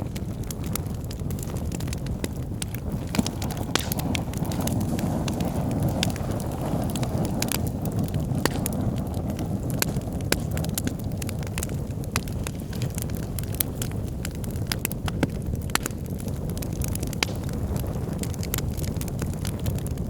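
Wood fire burning in a fireplace: a steady low rush of flames, with frequent sharp crackles and pops from the burning logs.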